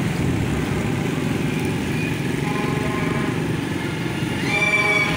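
Steady road noise of a vehicle moving through traffic, a low rumble throughout. A short high steady tone sounds near the end.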